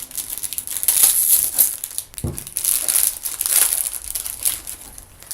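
Plastic wrapping crinkling and tearing as a trading card box is unwrapped and opened, with a dull thump about two seconds in.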